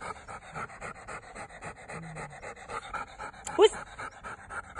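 Young dog panting rapidly and steadily while gripping a tug toy, with one short, high, rising squeal about three and a half seconds in.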